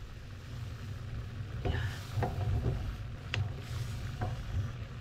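Beef and tomato sauce simmering in a frying pan over a low steady rumble, with a wooden spatula stirring and clicking against the pan four times.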